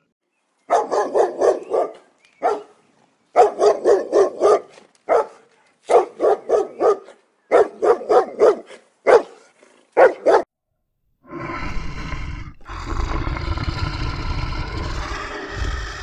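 A dog barking in quick runs of four or five barks with short pauses between. Near the end, a lion growling low and rough.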